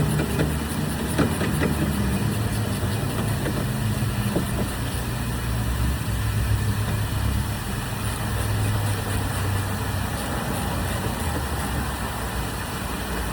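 A 2019 Buick Encore's 1.4-litre turbocharged four-cylinder engine idling steadily after an oil change, with a few faint clicks in the first few seconds.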